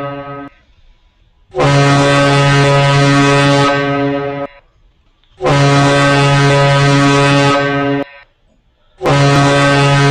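Morse code for the letter J (Juliet) sounded as long, low, horn-like tones. A tone ends about half a second in, then three long tones of about three seconds each follow, a second apart.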